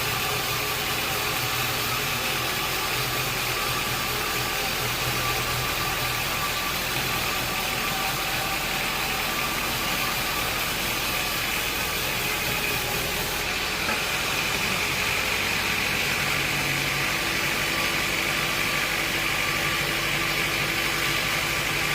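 Sawmill machinery running steadily with an even mechanical drone, its tone shifting slightly about two-thirds of the way through.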